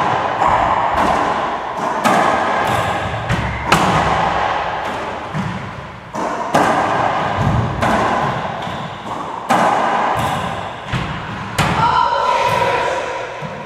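Racquetball rally: the hollow rubber ball smacking off racquet strings and the court walls, a string of sharp hits about once a second or faster, each ringing out in the enclosed court's echo.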